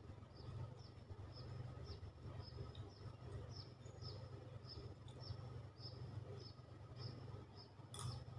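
A bird chirping over and over, short high chirps evenly spaced about twice a second, over a faint low steady hum. Near the end a spoon clinks against a bowl.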